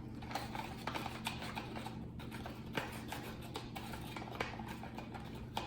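A chopstick stirring a baking soda and dish soap mixture in a container, making light, irregular clicks and taps against its sides.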